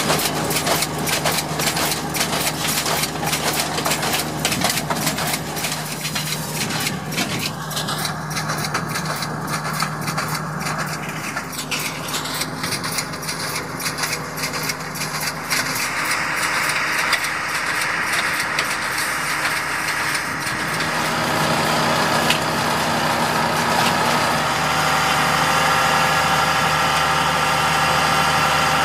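Heavy diesel engine of a self-propelled planting rig running steadily, with rapid mechanical clicking and rattling over it in the first part; the sound grows louder and takes on steady higher tones about two-thirds of the way through.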